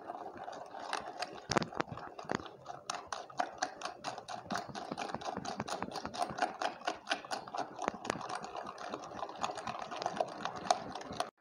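Quick, rhythmic clicking of a utensil beating against the side of a glass mixing bowl, about four to five strokes a second, as a soft chocolate cookie batter is mixed by hand. The strokes are uneven at first and settle into a steady beat about three seconds in.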